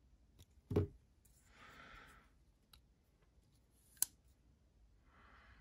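Kizer Dukes folding knife with a bearing pivot being handled and worked after reassembly: a dull knock about a second in, then one sharp click about four seconds in from the blade as its action is checked. Soft hisses between.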